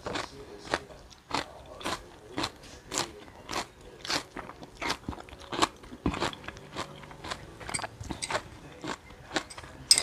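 Close-up crunchy chewing of raw sea kale stems, a crisp crunch about twice a second, with one sharp click right at the end.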